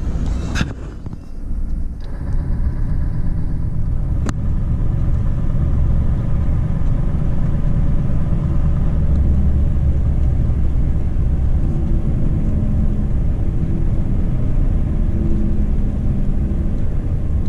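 Scania R520 truck's V8 diesel running as the truck drives, a steady low rumble with a single sharp click about four seconds in.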